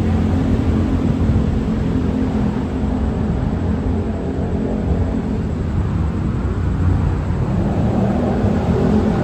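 Hitachi AT-100 diesel train running, with a steady low engine hum over a broad rumble.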